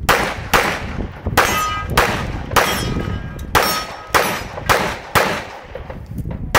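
Pistol shots fired at steel plate targets, about nine in the six seconds at an uneven pace of roughly one every half second to second, with the hit plates clanging and ringing after the shots.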